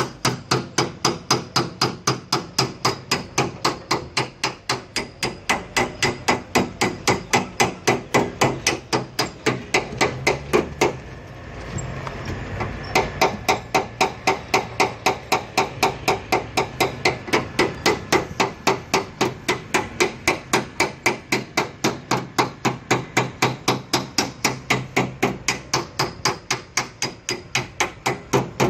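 Hammer tapping the sheet metal of a car's rear door in a rapid, even rhythm of about four blows a second, panel-beating out a dent. The tapping stops for about a second and a half midway, then carries on.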